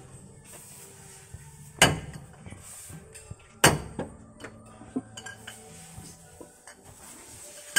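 Sharp metallic clanks of metal striking metal: two loud ones about two and three and a half seconds in, with lighter clinks between them and near the end.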